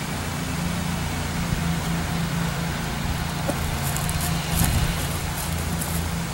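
Steady low hum with an even hiss over it, with no single event standing out.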